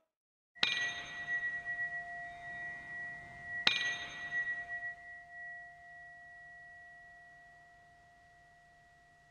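Two struck, bell-like chimes about three seconds apart, each ringing on in a long, slowly fading tone: the opening notes of the song's intro.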